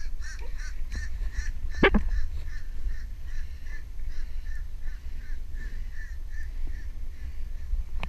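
Crows calling over and over, about three short calls a second, with wind rumbling on the microphone and a single knock about two seconds in.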